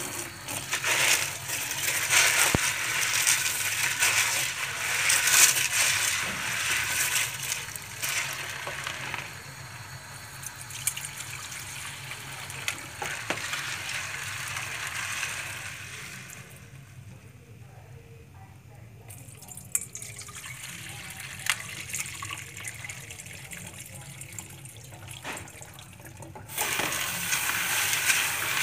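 Kitchen tap running into a plastic bowl of dried beans as they are rinsed and stirred by hand, the water splashing into the bowl. The rush is loudest at first, falls much quieter past the middle, and comes back suddenly near the end.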